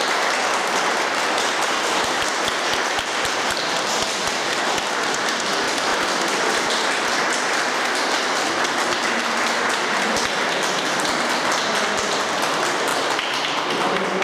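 Audience applauding steadily: many hands clapping together in a dense patter.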